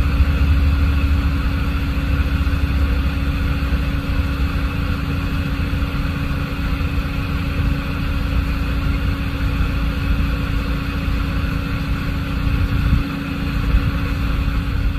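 Vehicle engines idling in a line of traffic held at a railroad crossing: a steady low drone with a constant hum, heaviest in the first few seconds.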